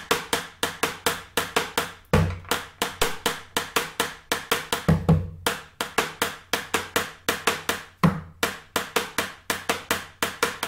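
Cumbia tambora rhythm played with a wooden stick on a bombo laid on its side: a fast, even run of clicking strokes on the wooden hoop, about four to five a second, with a deep stroke on the drumhead about every three seconds.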